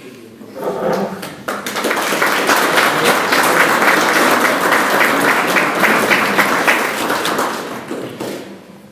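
Audience applauding: the clapping builds up within the first second or two, holds steady, and dies away near the end.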